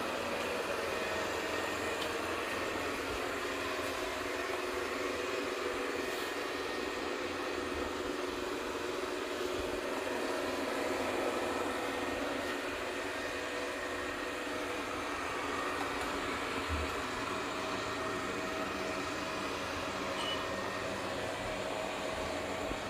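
ECOVACS DEEBOT X9 Pro Omni robot vacuum-mop running: a steady motor hum with a few held tones over a wide, even whir.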